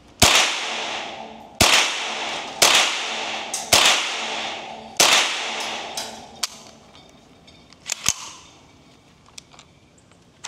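Five unsuppressed .22LR rifle shots from a Ruger 10/22 takedown firing Wildcat ammunition, loosely spaced about a second apart, each with a long echoing tail. A few fainter sharp cracks follow near the end.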